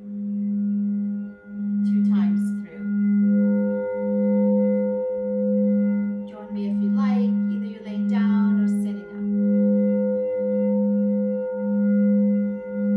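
Quartz crystal singing bowl sung by circling a mallet around its rim: a steady low hum with fainter higher overtones, swelling and fading about once a second as the mallet goes round.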